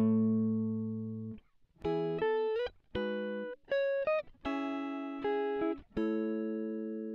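Background music: plucked guitar notes and chords, each struck and left to ring out and fade before the next, with a couple of sliding notes.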